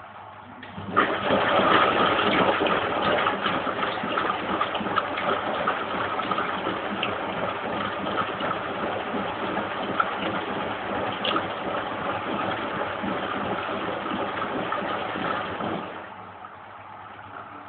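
Lynx 4TS-710A washing machine running an empty final rinse: a loud rushing, splashing noise starts abruptly about a second in and cuts off abruptly near the end, over a steady lower machine hum.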